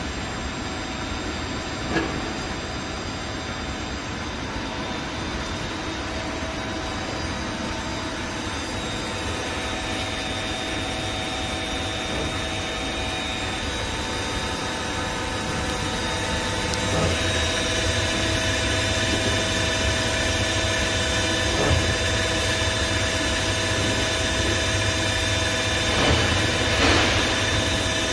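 A 1995 Takamaz X-15 CNC lathe running, a steady machine hum with several steady whining tones over it, its main spindle and power chuck spinning. The sound grows louder and further tones join a little past halfway, with a few short clicks and clunks along the way.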